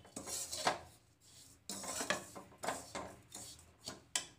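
A metal spatula scraping around a metal kadhai as it stirs dry roasted bread crumbs: a run of rasping strokes, with a short pause about a second in.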